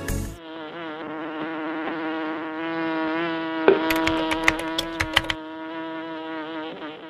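Cartoon bee buzzing sound effect: a steady, pitched buzz that wavers up and down in pitch. About halfway through, a quick run of sharp clicks sounds over it.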